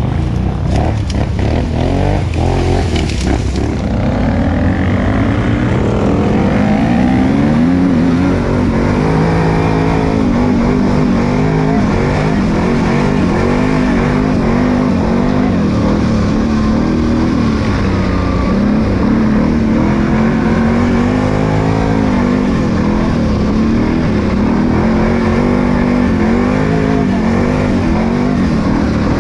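Can-Am ATV's V-twin engine running close up as it is ridden, repeatedly revving up and easing off. A few sharp clicks in the first few seconds.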